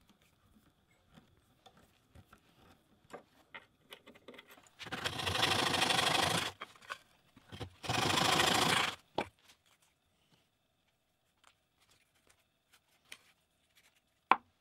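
A fine-toothed hand saw cutting through a wooden dowel: two spells of sawing, each about a second and a half long and a little over a second apart. Light clicks and taps of handling come before and after, with one sharp tap near the end.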